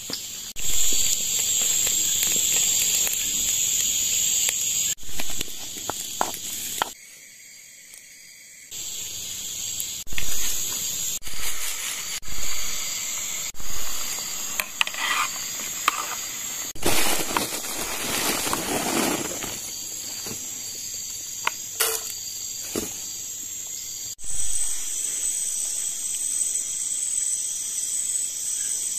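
Steady high-pitched buzzing of a tropical forest insect chorus, with several louder bursts of noise at intervals through the middle. The background shifts abruptly a few times.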